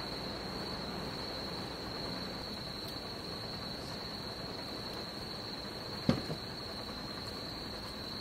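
Crickets singing in a steady, unbroken high trill, with one short click about six seconds in.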